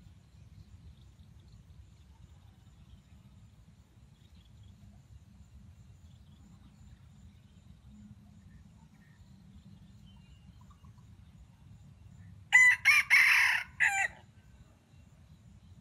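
Red junglefowl cock crowing once near the end: a single short crow of about a second and a half in several parts, over a faint low background hum.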